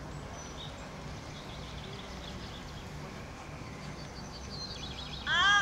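Outdoor background with faint bird chirps, then near the end a horse starts to whinny loudly, a high, quavering call.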